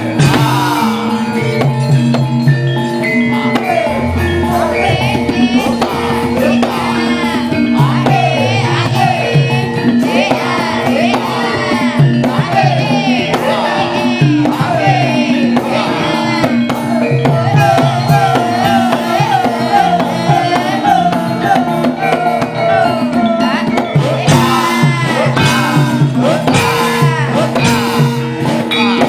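Javanese gamelan ensemble playing, with held ringing metallophone tones and kendang hand-drum strokes, and a voice singing an ornamented, wavering vocal line over it.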